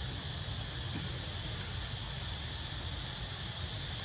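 Forest insects droning, a steady high-pitched single tone, with short chirps breaking in a few times over a low rumble.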